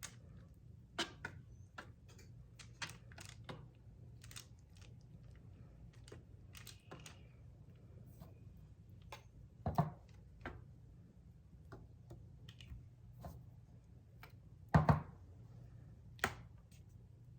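Scattered light clicks and taps of a utensil against a baking pan as pie filling is swirled into fudge, with two louder knocks about ten and fifteen seconds in, over a low steady hum.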